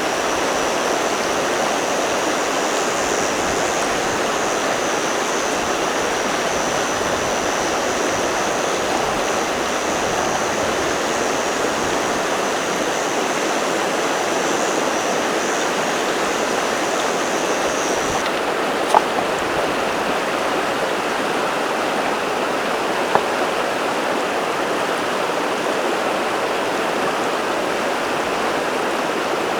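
A river runs steadily, water rushing over stones, with an insect's high continuous call above it that stops suddenly about two-thirds of the way through. Two small sharp knocks come shortly after.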